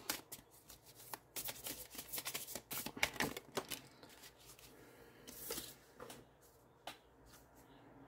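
A tarot deck being shuffled by hand: quick runs of card-on-card flicks and slaps, densest in the first half, thinning to a few scattered clicks in the last couple of seconds.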